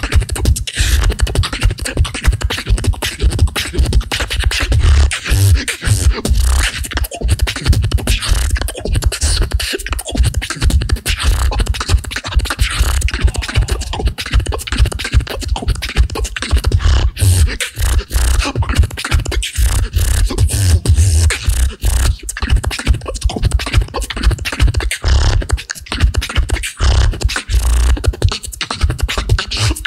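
A solo beatboxer performing a competition routine: fast, unbroken mouth-made drum patterns of kicks, snares and hi-hat sounds over a deep bass line.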